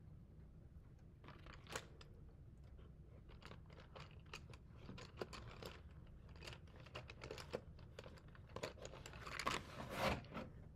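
Paper and small craft supplies handled on a tabletop: faint, irregular rustling and crinkling with small clicks, busiest and loudest near the end.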